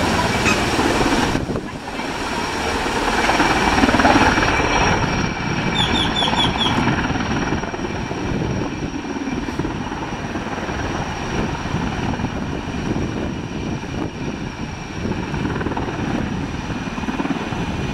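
Sikorsky S-64 Air-Crane firefighting helicopter hovering low over water while its snorkel draws up a load. A steady heavy rotor thrum and a high steady turbine whine run together with the rushing noise of rotor wash spraying off the lake surface.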